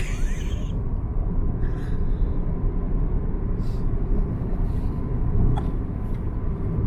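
Steady low rumble of road and engine noise inside a moving car's cabin, with a few faint clicks and rustles.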